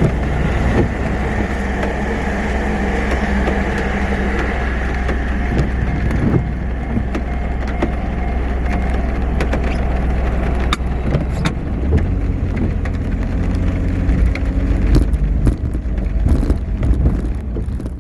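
Vehicle traffic running by, a steady low rumble, with scattered clicks and knocks in the last few seconds.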